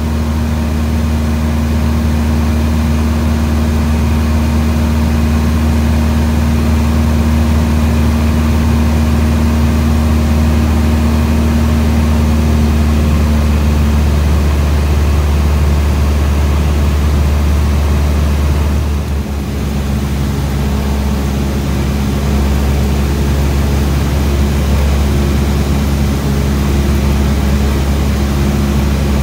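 Cessna 172SP's four-cylinder Lycoming engine and propeller drone steadily in cruise, heard inside the cabin. The engine dips briefly in level and its tone shifts slightly about two-thirds of the way through.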